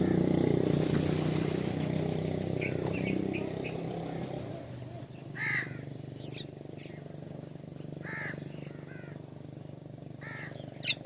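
Birds calling at a feeder: a few quick chirps, then three louder calls spaced a few seconds apart and a sharp high note near the end. Under them a vehicle engine's low hum fades away over the first few seconds.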